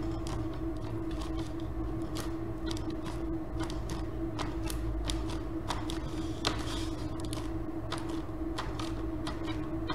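A hand pressing and rubbing wet paint onto a sheet of paper on a tabletop: irregular small clicks, taps and paper crinkles, over a steady hum.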